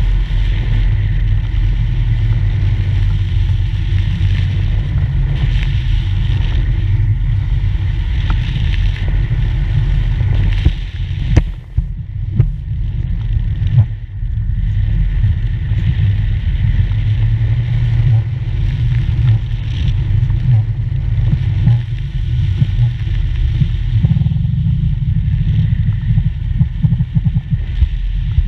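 Wind buffeting an action camera's microphone on a parasail ride: a loud, steady low rumble of rushing air. About eleven seconds in it drops away for a few seconds, with a couple of short knocks, then comes back.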